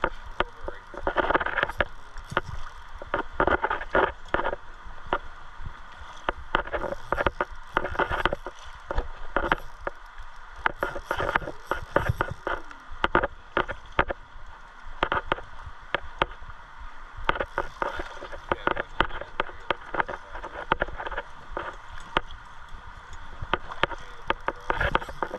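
River water flowing and splashing around a wading angler, with frequent irregular clicks and knocks close to the microphone.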